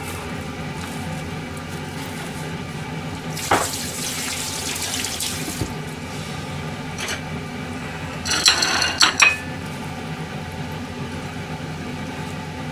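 Kitchen work over a steady low hum: a brief run of water for about two seconds, starting about three and a half seconds in, then a few quick clinks of crockery a little past the middle.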